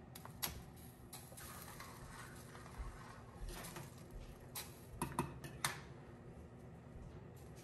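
Kitchen utensils and cookware clinking and knocking: several sharp clinks, bunched together around the five-second mark, with short scraping sounds in between.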